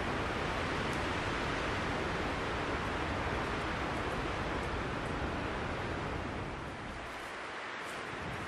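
Steady rushing noise of wind in a conifer forest, strong at the low end, which eases about seven seconds in.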